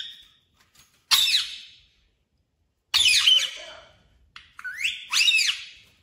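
Rose-ringed parakeets (Indian ringnecks) calling: a string of short, loud calls that slide up and down in pitch, with quiet gaps between them and a quick cluster of calls near the end.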